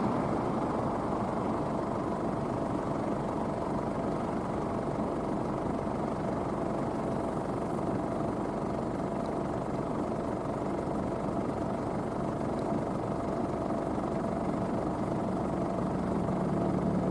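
Claas Medion 310 combine harvester running steadily, a constant machine drone that starts to swell in the last second.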